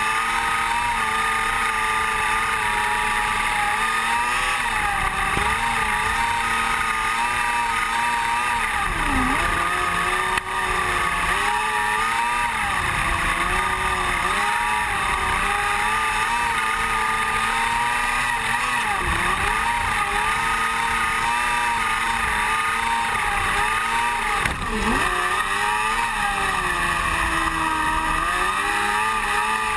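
Open-wheel dirt-track race car engine heard from an onboard camera, running at high revs in a race. Its pitch wavers up and down and drops sharply and briefly three times.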